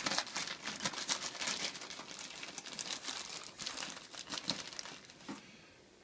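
Plastic bag crinkling and rustling as hands rummage in it for a shotshell nitro card, in irregular crackles that stop about five seconds in.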